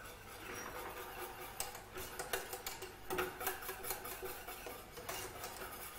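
Wire whisk beating pastry cream in a stainless steel saucepan, a quick, irregular run of metal ticks and scrapes against the pan as the custard is whisked over low heat to thicken.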